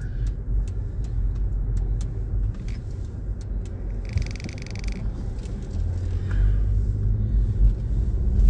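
A car driving, with a steady low road and engine rumble heard from inside the cabin. A brief high-pitched tone sounds for about a second midway.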